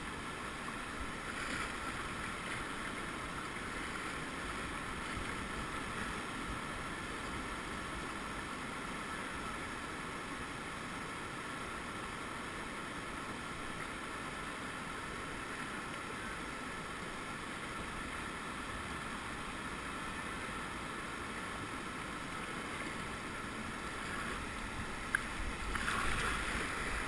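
Steady rush of river water around a moving kayak, growing louder near the end, with one short knock shortly before.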